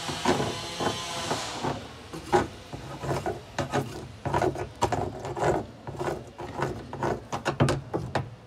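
Irregular scraping and clicking of a metal tool against a round workpiece, over a low steady hum. A hiss at the start fades out about two seconds in.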